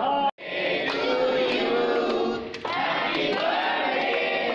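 A group of people singing together, with the sound cutting out abruptly for a moment just after the start.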